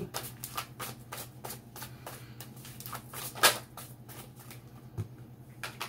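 A deck of reading cards being shuffled by hand: a quick run of card flicks and slides, with one louder snap about three and a half seconds in, thinning out near the end.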